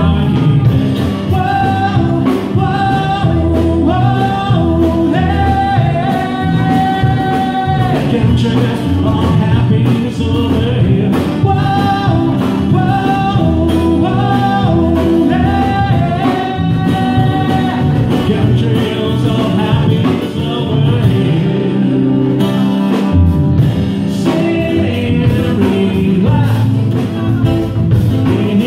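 Live acoustic song: a man singing a melody over strummed acoustic guitar and an electric bass line. The bass drops out briefly about two-thirds of the way through.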